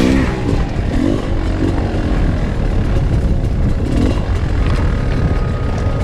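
Dirt bike engine revving up and down under load while climbing a rocky trail, with the revs rising about a second in and again near four seconds, over a heavy low rumble.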